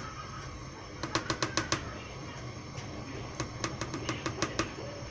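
A spoon stirring a thick milk and cornstarch mixture in a stainless steel pot, knocking against the pot's sides in runs of quick clicks: one run about a second in and another past the middle.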